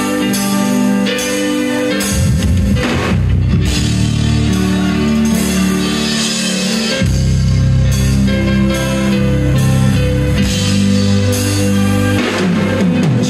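Live band music, an instrumental passage without singing, with electronic keyboard chords over a full band.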